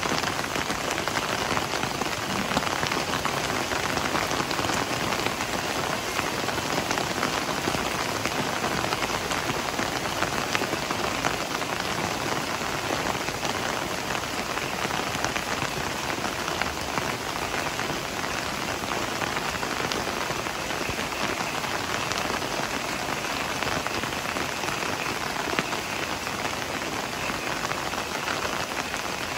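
Heavy rain falling steadily, a dense, even patter of countless drops.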